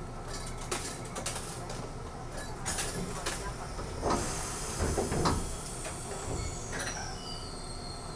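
Randen tram running on the rails and slowing, with scattered clicks and knocks, a hiss, and a high whine falling steadily in pitch over the last few seconds as it brakes for a station stop.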